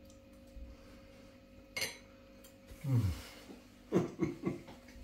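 A single sharp clink of a fork against the dish about two seconds in. Then a man chewing a mouthful and humming appreciative "mmm" sounds: one falling hum, then three short ones in quick succession.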